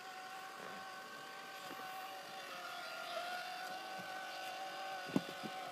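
Remote-control boat's small motor whining steadily, its pitch dipping briefly about halfway through; a single sharp knock near the end.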